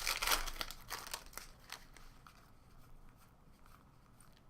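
Crinkling and rustling as trading cards and foil pack wrappers are handled and shuffled, busiest in the first two seconds, then quieter.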